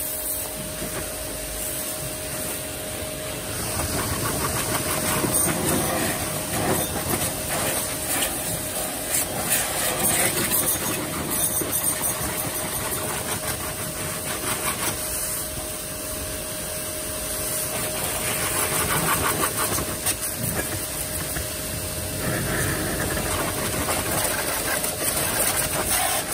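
Yamasu mini pressure washer running: a steady pump-motor hum under the hiss of the water jet. The spray noise grows louder and quieter by turns.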